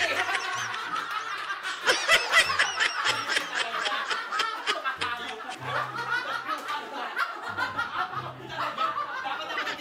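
People laughing in a burst of excited reaction to a surprise, with background music and its low bass notes underneath.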